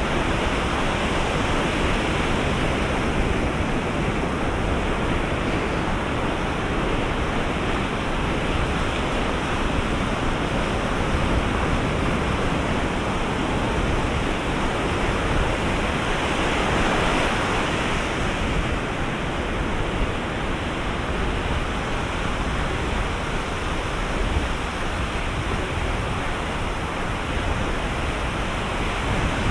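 Ocean surf rushing steadily on the beach, swelling a little as waves break a few seconds in and again just past the middle.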